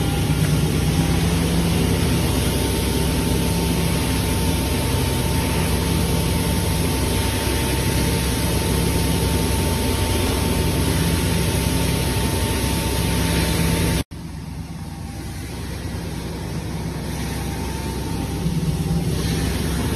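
Fiber-opening machine for polyester microfiber running: a steady whirring motor and fan noise with a low hum as it fluffs and blows out the fiber. About two-thirds of the way in the sound drops off abruptly and comes back quieter, slowly building again.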